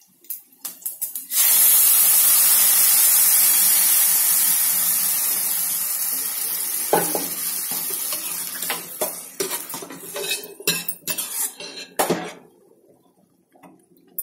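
Cooked fenugreek-leaf dal poured into hot oil with fried onions and curry leaves: a sudden loud sizzle a little over a second in that slowly dies away over several seconds. Then a metal ladle and spoon clink and scrape against the pot as the dal is stirred.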